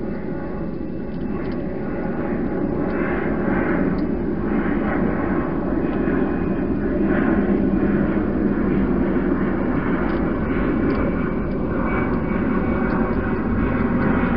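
Steady low engine rumble from distant traffic or a passing aircraft, swelling slightly over the first few seconds and then holding, with a few faint ticks over it.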